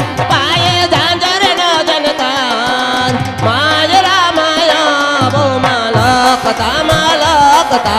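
Live Gujarati folk music: a hand drum keeping a steady beat under a wavering, ornamented melody.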